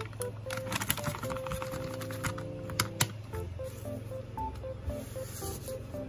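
A run of light clicks and taps from handling a plastic pack of baby wipes, bunched in the first three seconds, over soft background music.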